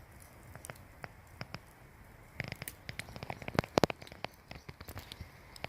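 Irregular sharp taps and clicks, thickest in a busy run about halfway through: wekas pecking at porridge.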